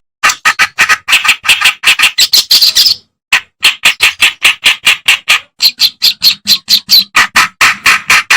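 Kerakbasi reed warbler singing a rapid run of short, harsh, scratchy notes, about five a second. There is a brief pause about three seconds in, then the notes carry on.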